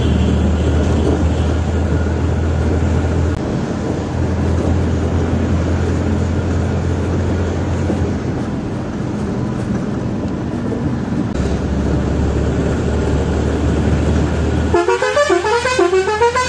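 Steady engine and road drone inside the cab of an Ashok Leyland Dost pickup on the move. Near the end, a six-pipe Roots hexatone air horn sounds loudly, playing a quick musical pattern of rising notes repeated several times.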